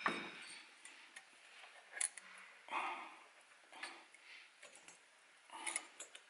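Faint handling sounds of a thin aluminium gasket being pressed by thumb onto an aluminium cylinder barrel and into its port: a few light metallic clicks and short crinkling rustles, spaced irregularly.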